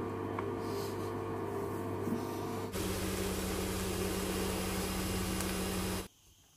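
Steady hum and fan noise of kitchen appliances. At a cut about two-thirds of the way through the first half, it changes to a louder, brighter fan-like hiss with a deeper steady hum, typical of a cooker extractor fan or an induction hob's cooling fan, and it stops abruptly near the end.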